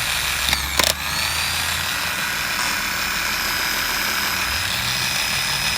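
1995 Ford Mustang GT starter motor powered straight from jumper cables, spinning at a steady high whine, with two sharp clicks under a second in. It runs smoothly, a sign that the starter works.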